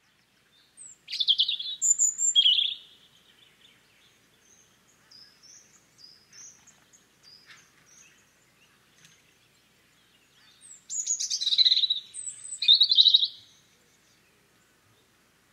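European robin singing: a loud phrase of quick, high, varied notes near the start and another about eleven seconds in, with soft thin high notes between them.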